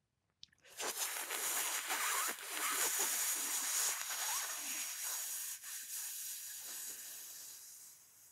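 A long hissing in-breath drawn through the rolled tongue and pursed lips (sitali-style breathing against resistance), lasting about seven seconds, strongest in its first half and fading away toward the end. A faint mouth click comes just before it.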